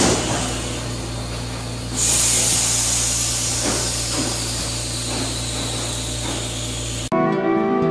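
Hypoxic air generator running: a steady compressor hum with a hiss of air, the hiss growing much louder about two seconds in. The sound cuts off abruptly near the end.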